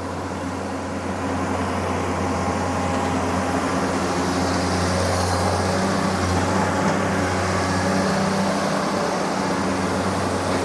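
Long-arm excavator's diesel engine running steadily under working load as the arm reaches out. The level rises a little over the first few seconds, then holds.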